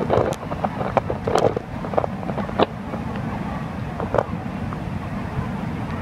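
Steady low rumble of the waterfall and river, with a few short knocks and clatters in the first half and once more about four seconds in.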